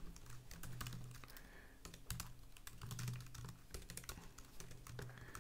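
Computer keyboard being typed on: faint, irregular key clicks in quick succession.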